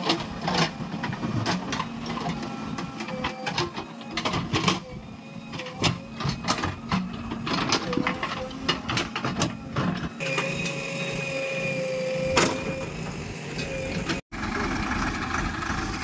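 JCB 3DX backhoe loader's diesel engine running under work, with a thin steady whine and a dense run of sharp clacks and rattles. The clatter thins out a little after ten seconds, leaving a steadier engine hum and whine, and a louder, even engine noise takes over near the end.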